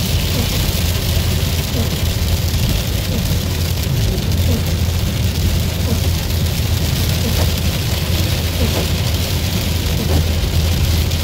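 A car driving on a wet road in rain, heard from inside the cabin: a steady low rumble of engine and road noise under an even hiss of tyres on wet pavement and rain.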